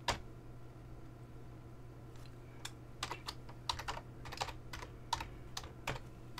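Typing on a computer keyboard: one keystroke at the start, then after a short pause a quick, irregular run of key clicks from about two seconds in.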